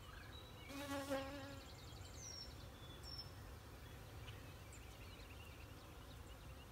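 Honey bees buzzing around an open hive, with one bee passing close by about a second in, its buzz briefly louder. Faint bird chirps sound now and then.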